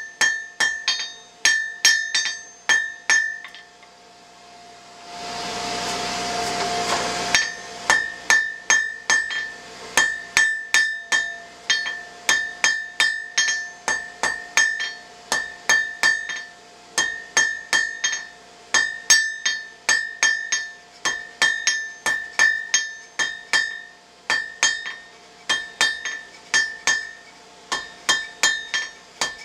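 Blacksmith's hammer striking hot steel on an anvil in quick runs of blows, about three a second, each strike ringing at a clear, steady pitch. The hammering pauses briefly just before a rushing noise that lasts about two seconds, then the strikes resume.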